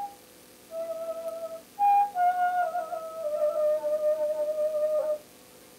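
Music: a slow melody in a single pure-toned line. Held notes step and slide down in pitch to a long final note, and the music stops about five seconds in.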